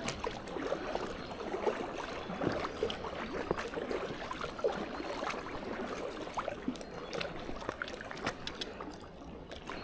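Creek water running steadily, with many small scattered clicks and rustling crackles over it.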